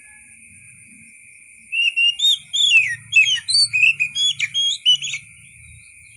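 Oriental magpie-robin singing: a rapid phrase of clear, sweeping whistled notes that starts nearly two seconds in and stops about a second before the end, over a steady high background hum.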